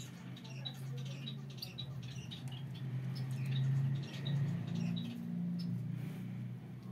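Newly hatched Gouldian finch chick giving thin, high peeps, a few a second, which thin out and stop about five seconds in. A steady low hum runs underneath and is the loudest sound.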